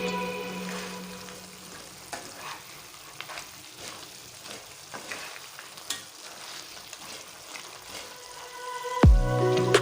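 Crab masala sizzling as it fries in oil in a pan, with occasional stirring. Background music fades out at the start and comes back in near the end.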